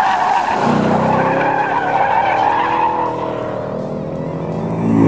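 Car tyres squealing as a car corners hard on a track, with the engine note rising as it accelerates out. A louder rush of noise comes near the end.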